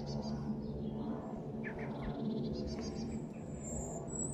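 The four jet engines of a climbing Boeing 747 give a steady distant rumble, while small birds chirp in quick repeated series over it.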